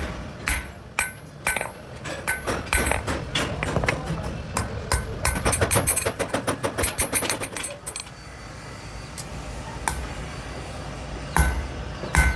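Hammer blows on steel from a car suspension spring at an anvil, each strike ringing. The blows come quicker and denser in the middle, thin out to a few light taps, then heavier strikes return near the end.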